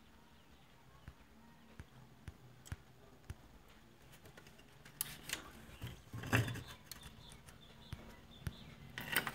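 Faint, scattered clicks and knocks of hands handling a CRT television's circuit board and plastic chassis as the board is fitted back. A denser, louder cluster of knocks comes about six seconds in.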